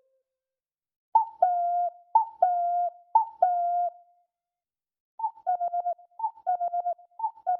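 Ocarina imitating a cuckoo clock. Three two-note cuckoo calls, each a short higher note falling to a held lower one, about a second apart; after a pause come three quicker calls whose lower note is played as rapid stuttering repeats.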